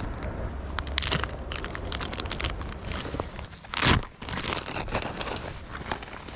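Clothing handling noise: a jacket sleeve and hand rustling and brushing right against the microphone. It makes a run of crinkling, crackling scrapes, with one louder swish about four seconds in.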